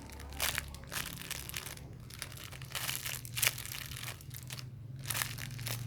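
Plastic crinkling in several short bursts as a squishy toy is handled in its plastic packaging.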